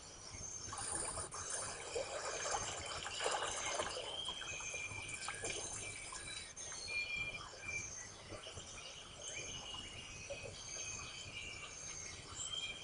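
Tropical forest ambience: many insects and birds calling in short, high chirps and trills throughout. A rougher patch of noise from about one to four seconds in stands out above them.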